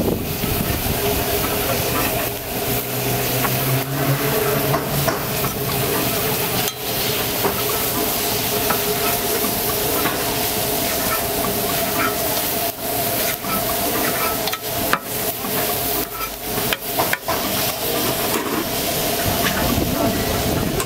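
Steak sizzling on a hot flat-top griddle while metal scrapers chop and scrape it against the steel plate, with frequent sharp clicks and scrapes over the steady sizzle.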